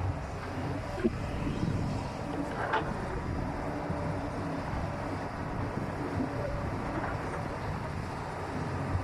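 Heavy diesel machinery running steadily, with a couple of short clanks about a second and nearly three seconds in.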